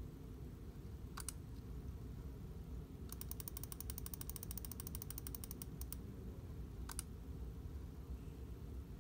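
Controls on an ultrasound console being clicked: a quick double click, then an even run of detent-like clicks at about a dozen a second for two to three seconds, and another double click near the end. Under it runs a low steady room hum.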